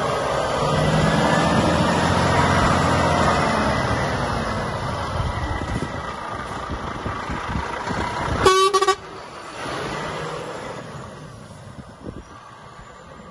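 Volvo FH 460 tractor unit's six-cylinder diesel running as the truck pulls past and drives away, loudest early on and fading as it goes. A little past halfway, a short horn toot of about half a second.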